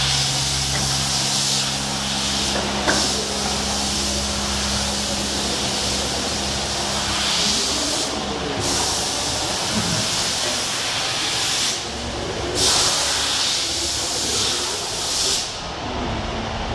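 Comandulli Athena CNC stone edge-polishing machine running: a steady hiss that breaks off briefly a few times, over a low machine hum that stops about seven and a half seconds in.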